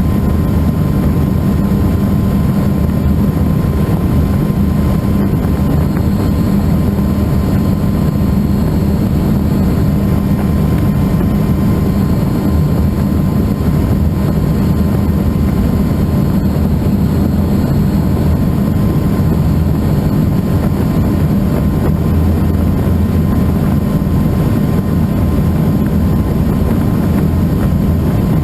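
Helicycle kit helicopter in flight, heard from the pilot's seat: its Solar T62T-32 turbine engine and rotor run as a loud, steady low drone with a thin steady high tone over it.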